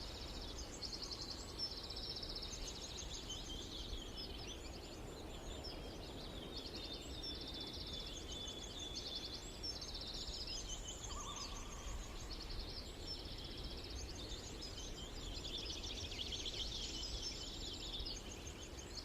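Eurasian skylark singing: a long, unbroken stream of high, rapid trills and warbles over steady low background noise.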